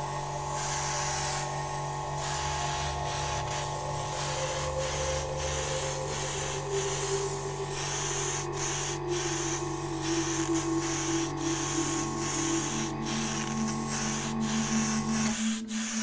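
Airbrush hissing in short repeated bursts as the trigger is pressed and released, over background music with long held tones that change about fifteen seconds in.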